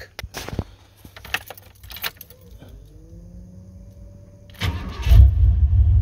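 Keys rattle at the ignition and a faint rising whine is heard. About five seconds in, the 1988–1998 Chevy/GMC pickup's engine cranks for only a moment, fires and settles into a steady idle, starting readily on its new ignition coil and distributor cap.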